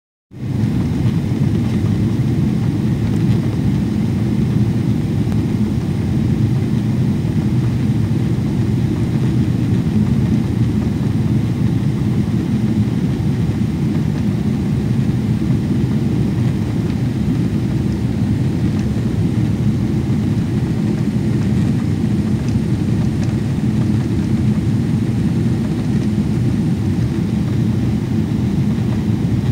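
Steady cabin noise of a jet airliner in flight: an even, deep rumble of engines and rushing air, heard inside the cabin at a window seat.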